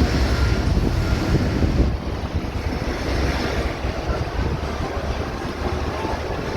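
Wind buffeting the microphone aboard a small motorboat, over a low rumble of engine and water; the sound drops and turns duller about two seconds in.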